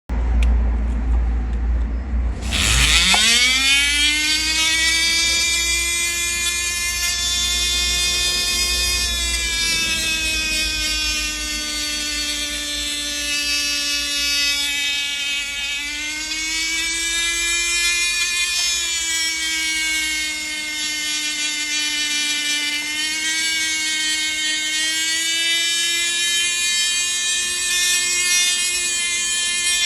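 Milling machine spindle spinning up about two and a half seconds in with a rising whine, then running at a steady high-pitched whine whose pitch sags slightly and recovers several times. Before the spin-up there is only a low hum.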